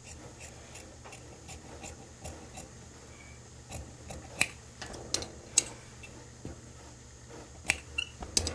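Large tailor's shears cutting through suit-trouser fabric: a series of sharp snips and blade clicks, mostly in the second half.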